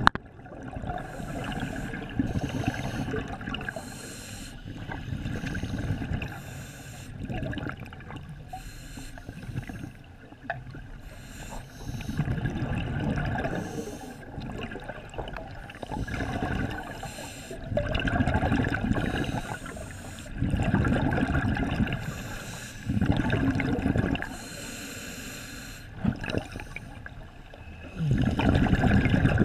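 Scuba diver breathing through a regulator underwater: bursts of exhaled bubbles rumble and gurgle every few seconds, and between them comes the short hiss of an inhalation through the demand valve.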